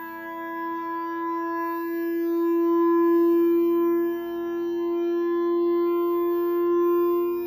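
Steady pitched whine with a held, wind-instrument-like tone coming from the CD player's own body rather than its speakers, swelling and easing a little in loudness. It is an unexplained fault noise that starts and stops as the player is switched on and off.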